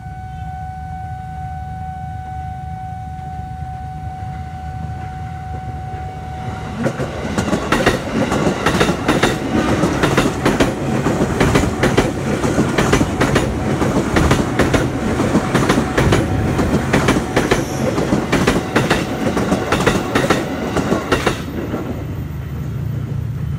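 A steady tone sounds for the first several seconds, then a JR 205 Series electric commuter train (KRL) passes, its wheels clacking rapidly and unevenly over the rail joints for about fourteen seconds before the sound drops away near the end.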